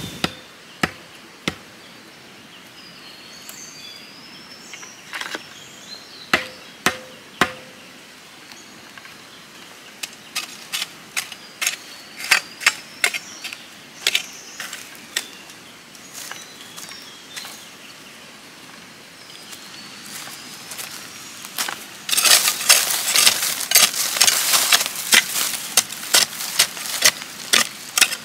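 Steel hoe blade striking stony soil: single sharp chops at first, then quicker runs of strokes. Near the end comes a louder, rapid stretch of hoeing, the blade biting and scraping through loose earth.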